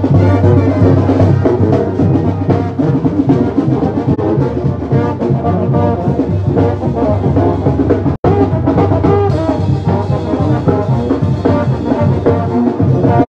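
A Mexican brass band with sousaphone, trumpets and trombones playing a tune. There is a very brief break in the sound about eight seconds in.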